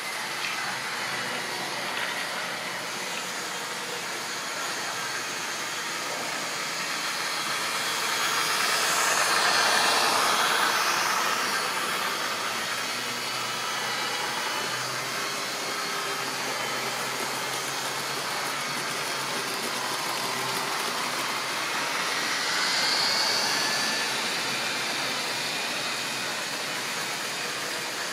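Model railway trains running: the steady whir of small electric locomotive motors and the wheels running over the track, swelling as a train passes close by about ten seconds in and again briefly later on.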